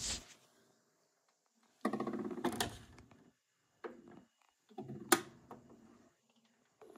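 BSR automatic record changer in an Emerson Wildcat suitcase record player running through its change cycle: two bursts of mechanical clatter and clicks, about two seconds in and about five seconds in, as a 12-inch LP drops onto the platter and the tone arm swings over to set down.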